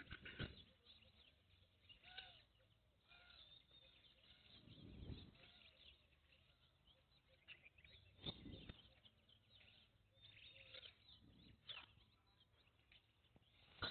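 Near silence: a few faint, light knocks and scrapes of metal as a compressor cylinder block is fitted onto its crankcase, with faint chirping in the background.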